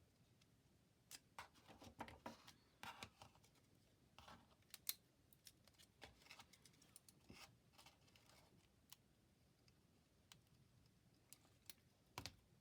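Paper being folded and creased by hand: faint, irregular crackles and clicks, thickest in the first few seconds, then sparse.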